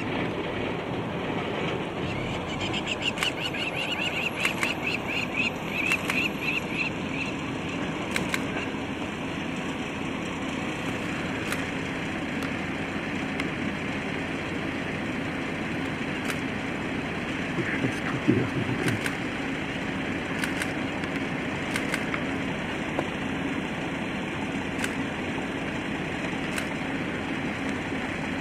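Steady hum of an idling vehicle engine under an even outdoor hiss. A run of high chirps comes between about 3 and 7 seconds in, and a few sharp clicks are scattered through.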